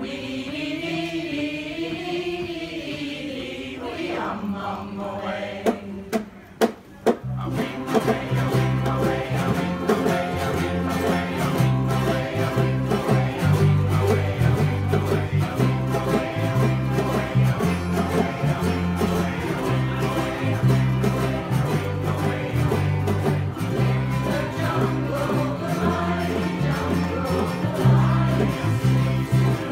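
Ukulele ensemble strumming a song with a steady beat and a bass line that alternates between two notes, with voices singing along. It opens with a single held, wavering note and a few sharp taps, and the full group comes in about seven seconds in.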